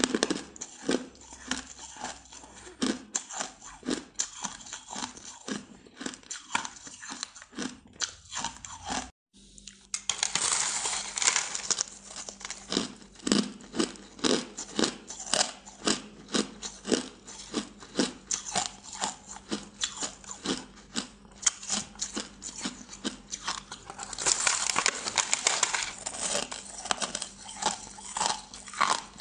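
Bites and chewing of a block of green-tinted, packed crushed ice: a dense run of crisp crunches. A brief gap comes about nine seconds in, and the crunching is at its densest just after the gap and again a few seconds before the end.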